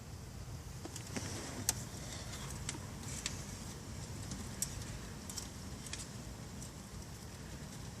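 Scattered light clicks and ticks of hand work on car wiring, over a steady low rumble.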